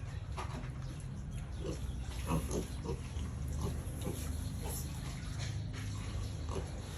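Pigs grunting, short grunts coming irregularly about one or two a second, over a steady low hum.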